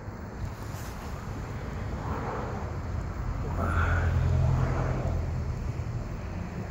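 Low engine rumble passing by, building to its loudest about four seconds in, then fading.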